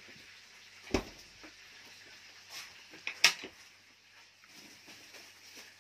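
Tableware and eating sounds: fingers picking at fried fish on a ceramic plate, with one knock about a second in and a quick cluster of sharp clicks a little after three seconds.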